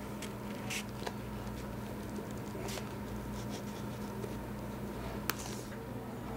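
A few faint, brief rustles and light scratches as art materials are handled to begin a new piece, over a steady low room hum.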